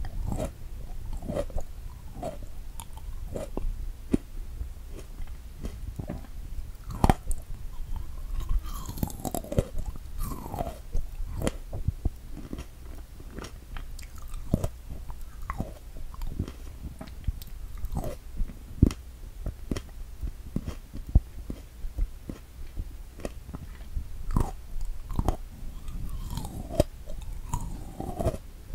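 Chewing strawberries close to the microphone: irregular soft mouth clicks and smacks at an uneven pace.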